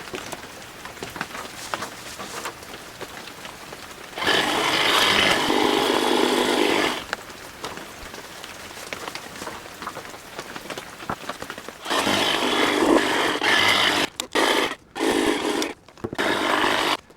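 Power hedge trimmer running in two bursts, the first about three seconds long and the second about five, each starting and stopping suddenly as the trigger is squeezed and let go, with quick cut-outs near the end.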